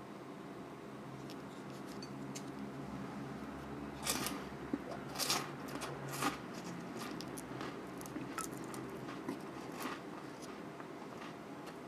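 Kabaya Sakupan choco monaka, a crisp wafer shell filled with aerated chocolate, being snapped and crumbled apart by hand: a run of small crackles and snaps, the loudest a few seconds in.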